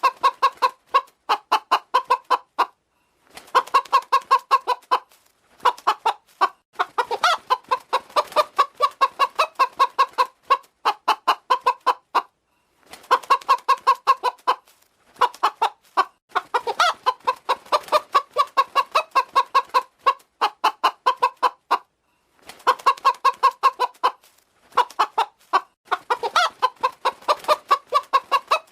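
Hen clucking in fast runs of short repeated notes, a couple of seconds at a time, with brief pauses between runs.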